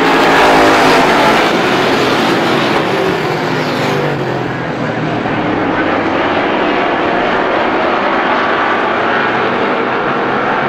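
A full field of Strictly Stock race cars running hard together around a short oval, their engines blending into one loud, continuous drone. It is loudest about half a second in as the pack sweeps past, with a car's pitch falling away a few seconds later.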